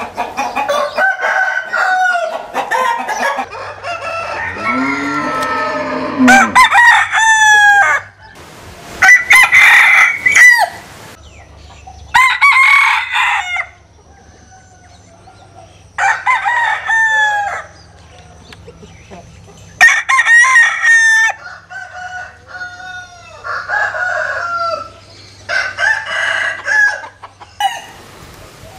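Vietnamese bamboo bantam rooster (gà tre) crowing repeatedly: about six loud crows a few seconds apart, with clucking calls in between.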